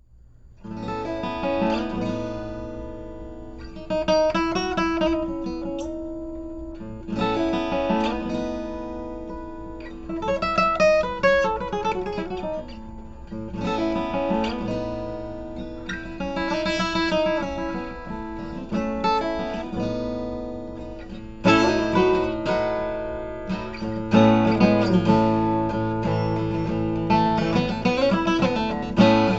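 Seagull Performer CW HG QIT cutaway acoustic-electric guitar being played: chords struck every few seconds and left to ring out, with picked runs between them, the playing growing busier about two-thirds of the way through.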